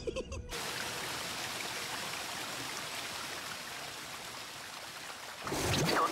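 Cartoon sound effect of a steady rushing hiss that sounds like water, starting as the music cuts off about half a second in. A louder sweeping whoosh comes in near the end.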